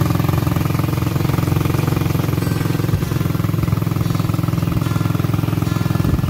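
A small engine running steadily at a constant, fast pulse.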